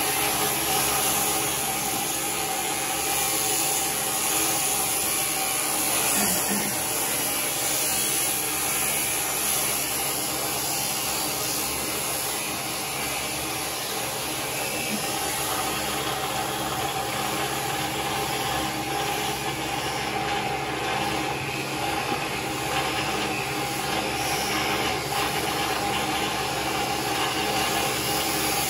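Electric sheep shears running steadily, a constant motor hum with an even whir over it.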